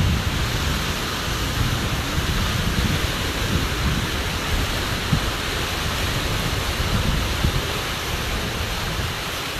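Wind blowing across the microphone: a steady rush with irregular low rumbling gusts.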